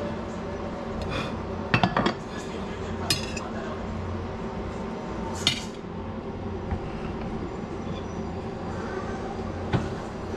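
Ceramic dishes, a ceramic butter-dish lid and a table knife clinking and knocking: a quick cluster of clinks about two seconds in, then single knocks around three seconds, five and a half seconds and near the end. A steady low hum runs underneath.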